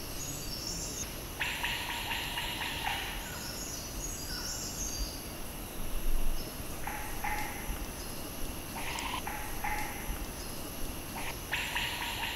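Forest ambience: insects droning steadily, with a few high bird chirps and several short bursts of rasping calls every few seconds.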